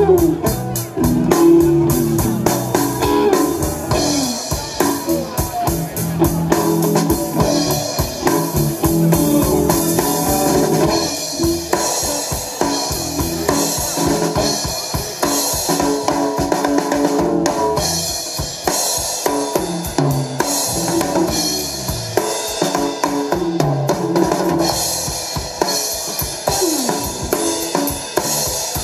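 Live rock band playing: electric guitar notes over a Pearl drum kit, with dense drumming on kick, snare and cymbals.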